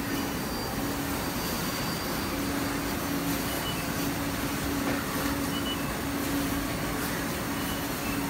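Steady whir and hum of a row of running Panasonic NPM pick-and-place machines placing surface-mount components on circuit boards. A low drone comes and goes, with faint ticks and a few short high tones.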